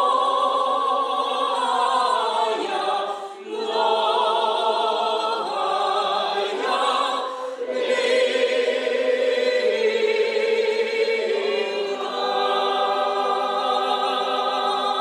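Many voices singing together in slow, long-held phrases. There are brief breaks between lines about three and seven seconds in.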